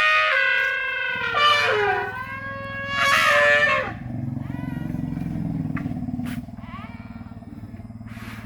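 Elephants trumpeting: loud, brassy calls bending in pitch at the start and again about three seconds in. Under them a low rumble starts about a second in and drops away after about six seconds.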